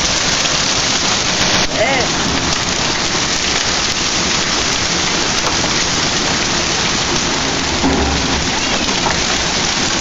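Hailstorm: heavy rain and golf-ball-sized hail pouring down on a yard, a steady dense hiss. A brief low rumble comes about eight seconds in.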